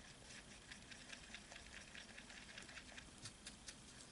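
Small whisk beating a creamy mixture in a glass bowl: a faint run of quick light ticks as the wires tap and scrape the glass.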